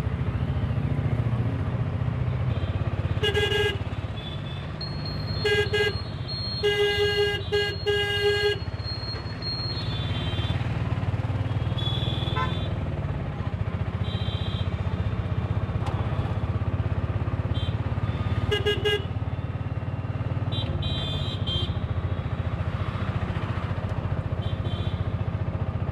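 Auto-rickshaw engine running with road traffic, heard from inside the open cab. Horns honk over it: once about three seconds in, again near six seconds, a quick string of honks around seven to eight seconds, and once more near nineteen seconds, with a few fainter, higher beeps in between.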